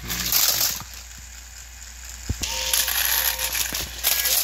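Battery-powered plastic toy train engines rattling and clattering, with a sharp knock a little over two seconds in.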